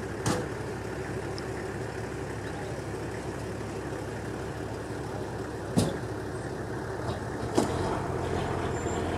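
Engine idling steadily with a low hum, broken by three short knocks: one just after the start, one near six seconds and one near eight seconds.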